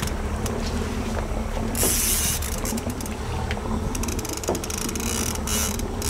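Fishing reel clicking as a hooked fish is fought on a bent rod, with dense runs of rapid clicks in the second half, over the low steady drone of the boat's engine.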